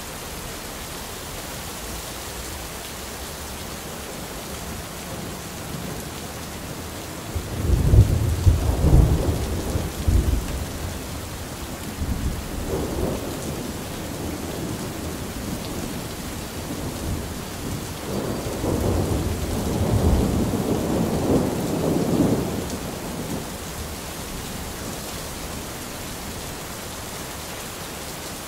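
Thunderstorm: steady rain hissing throughout, with deep rolls of thunder. The first roll breaks in sharply about a quarter of the way in and rumbles for several seconds. A second, longer roll comes about two-thirds of the way through.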